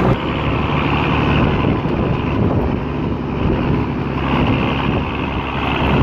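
Mercedes-Benz Unimog engine running as the truck drives along a bumpy dirt track, heard from its open cargo bed with wind buffeting the microphone.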